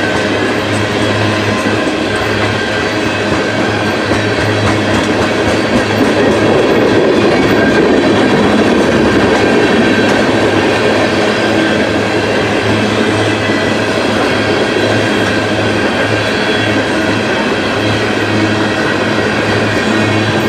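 Empty ethanol tank cars of a unit train rolling past, a steady rumble of steel wheels on the rails that swells a little in the middle.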